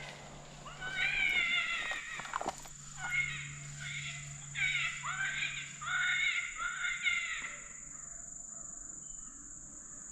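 Several canines yipping and howling together in high, falling, overlapping cries, which stop about seven and a half seconds in. A steady high tone runs underneath.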